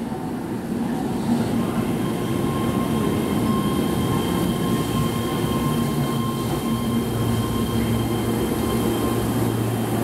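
Keihan 13000-series electric commuter train pulling in along the platform and slowing to a stop, with a steady rumble of wheels on rail. Thin, steady high-pitched squeal tones run through most of it, and a low hum comes up in the last few seconds as the train comes to a halt.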